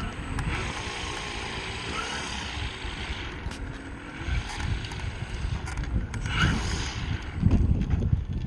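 Wind buffeting the microphone in irregular low gusts, strongest near the end, over a steady outdoor hiss.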